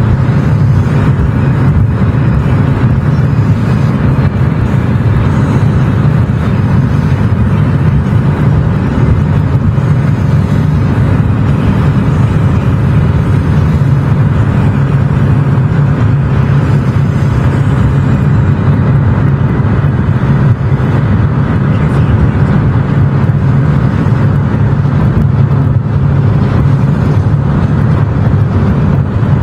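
Car driving at a steady speed: a loud, steady, low drone of road and engine noise.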